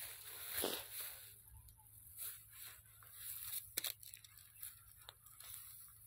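Irregular rustling and crunching of dry cotton plants and fallen leaves as someone moves through a cotton field, with a couple of sharp clicks about four seconds in.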